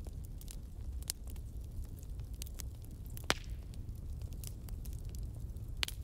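Bonfire crackling: a steady low rumble with scattered sharp pops and snaps of burning wood, and one louder pop about three seconds in.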